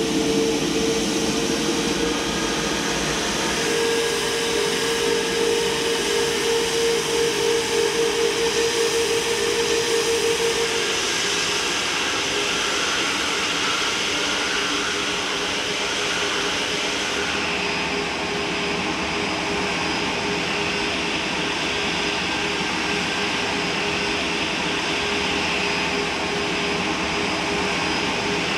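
Airliner engines running steadily with a continuous rushing noise, and a pulsing hum that fades out about ten seconds in.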